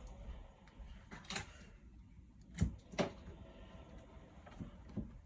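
Handling noise from a keyboard and its cable being picked up and moved: a few scattered light knocks and clicks, two of the clearest close together a little past halfway, with faint rustling between them.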